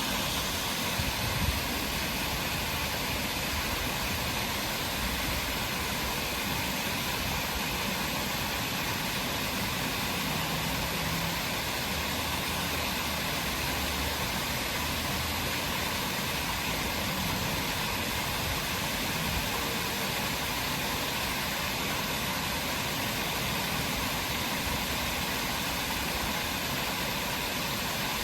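Steady, even rushing noise with no distinct events except a brief low bump about a second and a half in.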